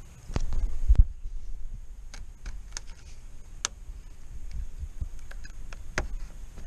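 A low rumbling thump in the first second. Then a few scattered sharp clicks and ticks of a hand tool on the metal hose clamp as the clamp on the upper radiator hose is worked loose.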